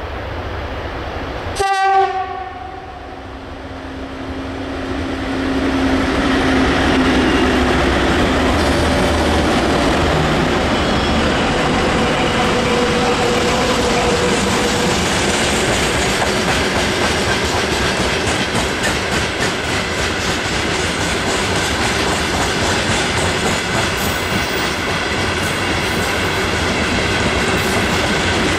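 Freight train led by a VL10K electric locomotive passing: a short horn blast about two seconds in, then the steady rumble and clatter of the wagons' wheels on the rails.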